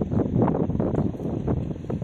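Wind buffeting the microphone: an uneven low rumble that swells and dips.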